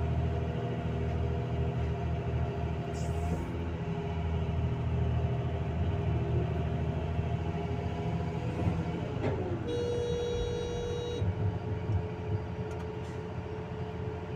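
Excavator's diesel engine running steadily under load with its hydraulics working as the bucket digs and swings. About ten seconds in, a brief steady tone sounds for a little over a second.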